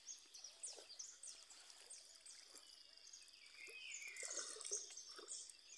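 Faint outdoor ambience of many small birds chirping in short, quick calls, over a steady high insect hum. It grows slightly louder about four seconds in.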